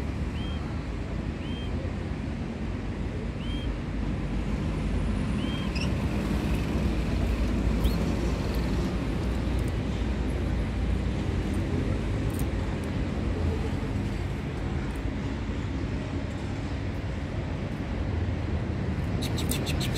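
A steady low rumbling background noise, with a few faint, short bird chirps in the first few seconds and a quick run of light clicks near the end.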